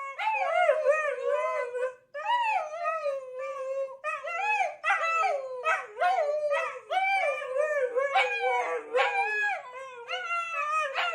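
A dog howling in long, wavering phrases that rise and fall in pitch, with a brief break about two seconds in.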